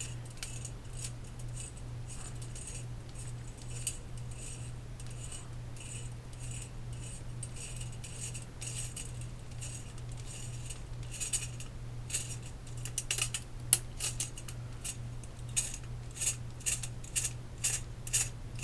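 Small metal AR-15 parts clicking and clinking as an aluminium buffer tube and its spring are handled and fitted to a folding stock adaptor. The clicks come more often near the end, over a steady low hum.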